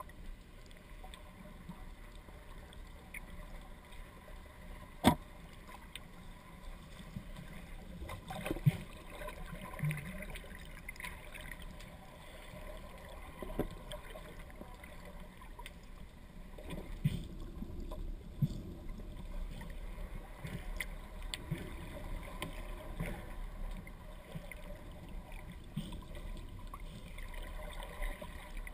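Underwater sound heard through a camera's waterproof housing: a steady low rumble of moving water with scattered sharp clicks and knocks, the loudest about five seconds in.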